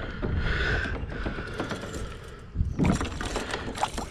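Irregular small clicks and knocks with rustling, from gear being handled aboard a kayak, with a denser cluster of clicks about three seconds in.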